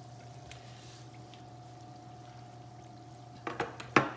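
Fry bread dough frying in hot oil in an electric skillet, a steady faint sizzle. Near the end, a few sharp metallic clacks as the metal tongs are set down on the countertop.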